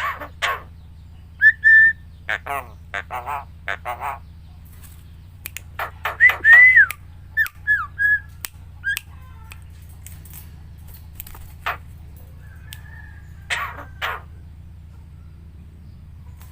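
Javan myna (jalak kebo) calling in scattered bursts: harsh, grating squawks mixed with short whistled notes that glide up and down. A low steady hum runs underneath.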